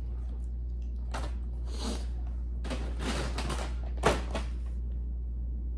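Cardboard food carton being handled and set down on a table: a few short rustles, then a sharp knock about four seconds in. A steady low hum runs underneath.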